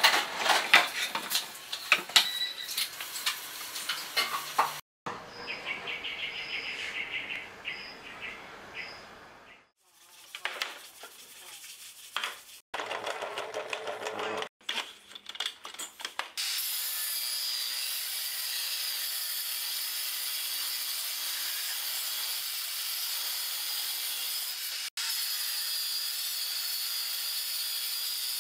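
Woodworking sounds: wooden pieces knocking and rubbing, then a benchtop table saw ripping a wooden board along its fence, a steady even cutting noise over the last stretch with a brief drop near the end.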